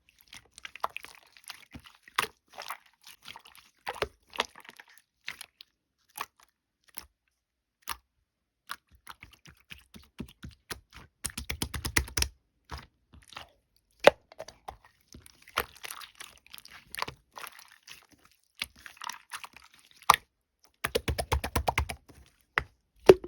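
Slime being played with by hand: sticky clicks and pops as it is pressed, folded and stretched, with two runs of rapid crackling about eleven and twenty-one seconds in.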